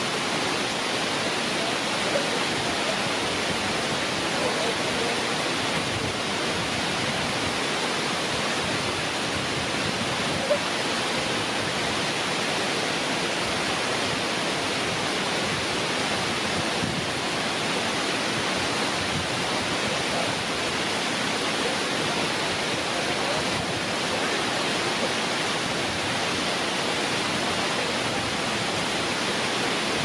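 Wide curtain waterfall pouring steadily into its plunge pool, a constant even rush of falling water.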